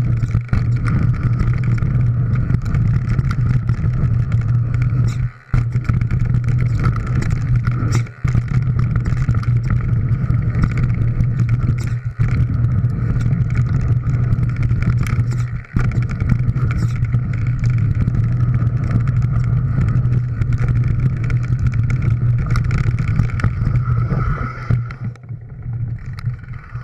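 Riding noise on a handlebar-mounted GoPro Hero3 as a mountain bike descends a gravel trail: a steady low rumble of wind and tyres on gravel, with many small knocks and rattles from the bike. It eases about 24 seconds in.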